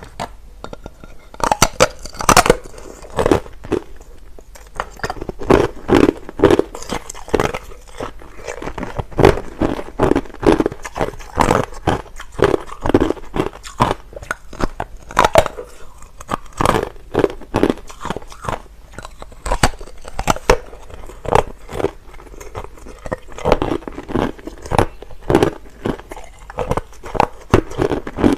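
Clear, hard crushed ice being bitten and chewed close to the microphone: loud, sharp crunches, starting about a second and a half in and repeating unevenly one or two times a second.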